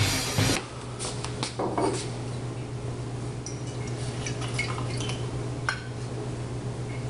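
Music cuts off in the first half second. Then a glass jug is handled, with scattered light clinks and taps of glass and its cap, over a steady low hum.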